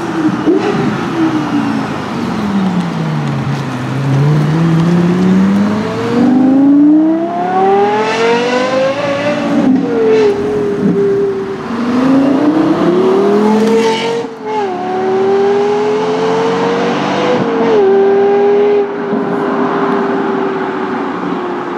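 Lexus LFA's 4.8-litre V10 accelerating hard. Its note falls, then climbs steeply through the gears, with sudden pitch drops at three quick upshifts, and settles into a steady drone near the end.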